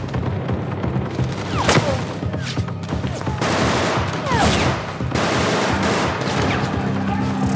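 Bursts of automatic gunfire, many quick cracking shots, over a steady low drone from the film's score.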